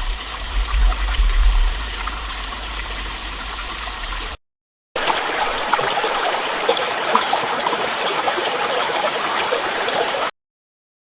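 Rushing water like a stream or waterfall, in two takes split by about half a second of silence. The first take has a deep rumble under the rush; the second is brighter, with fine splashing. The sound cuts off a little before the end.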